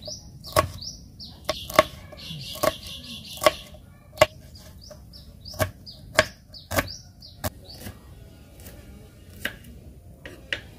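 Kitchen knife chopping chilies and then a shallot on a wooden cutting board: sharp, irregular knocks about once or twice a second, some dozen strokes in all. A bird chirps repeated short falling notes through the first two-thirds.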